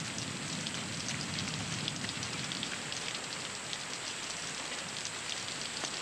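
Steady rain falling, a continuous hiss dotted with many small drop ticks.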